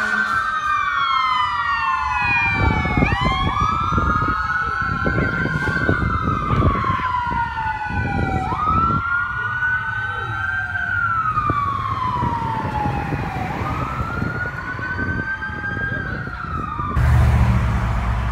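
Fire apparatus electronic sirens on wail, two overlapping slow rising-and-falling tones repeating every few seconds. Near the end it cuts suddenly to steady road and engine noise heard from inside a car.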